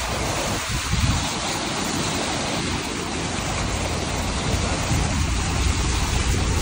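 Car tyres hissing steadily through standing water on a flooded road, over a low road rumble.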